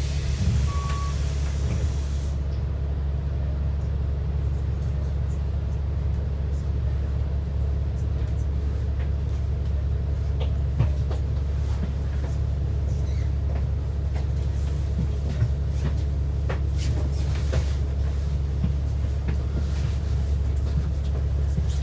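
Transit bus running at a steady speed, heard as a continuous low rumble of engine and road, with small rattles and clicks scattered through it. A hiss fades out over the first couple of seconds.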